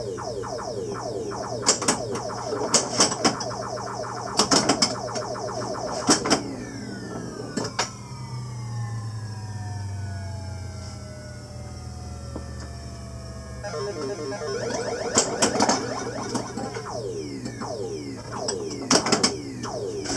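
Williams Black Knight pinball machine in play: clusters of sharp knocks from the flippers and playfield, mixed with the game's electronic sound effects sweeping down in pitch. From about seven seconds in, a long series of falling tones over a low falling hum runs for several seconds.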